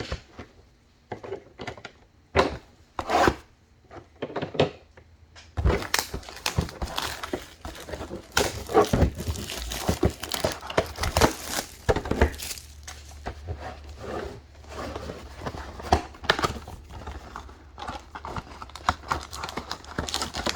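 Plastic trading-card packaging being torn open and crumpled: scattered crinkles at first, then continuous crinkling and tearing from about six seconds in.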